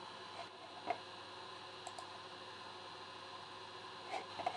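A few light clicks and taps of small tools against a phone motherboard during cleaning, the sharpest about a second in and a cluster near the end, over a steady faint hiss.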